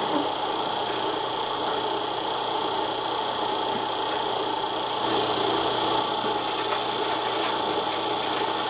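Electric motor driving a homemade belt-driven #32 meat grinder, running steadily as cubed beef chuck is ground through the plate. A steady hum with a few steady higher tones, a little louder from about five seconds in.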